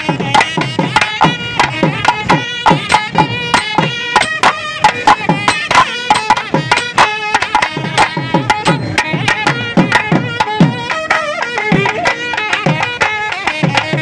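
Indian traditional instrumental music: a hand drum playing quick strokes, its low strokes bending down in pitch, under a melody.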